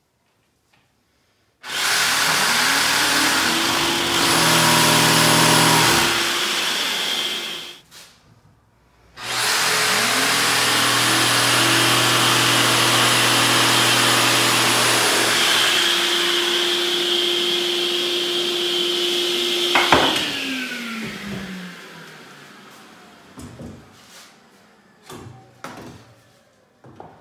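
Jigsaw with a shop-vacuum hose attached, cutting a traced curve into the end of a wooden board in two runs of several seconds each, with the vacuum motor spinning up each time. After the saw stops, the shop vacuum runs on alone for a few seconds, then switches off with a click and winds down, followed by a few light knocks of wood being handled.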